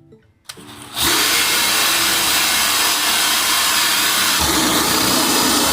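Power drill boring a hole through a door for a new deadbolt, starting briefly about half a second in, then running steadily under load from about a second in.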